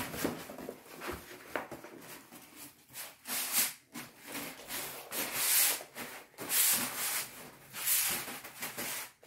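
Paper wallpaper strip rustling and rubbing as it is rolled up on itself on a laminate floor, in several swishes that come and go.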